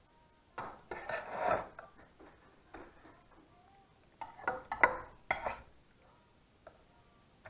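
Metal serving spoon scraping and clinking against a stainless steel saucepan as thick pheasant stew is scooped out into a ceramic pie dish, in several scoops. Two sharp clinks come about two-thirds of the way through.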